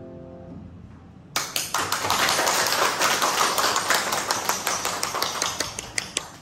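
The last piano chord dies away, then a small group claps for about five seconds, thinning out to a few last claps near the end.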